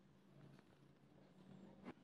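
Near silence: faint room tone with a low steady hum, and a single sharp click just before the end.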